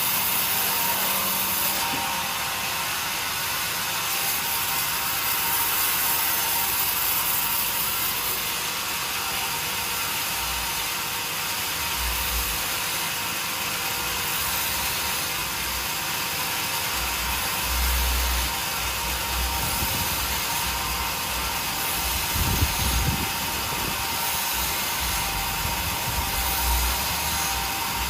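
Sawmill machinery running with a steady mechanical noise and hiss, and scattered low thumps in the second half.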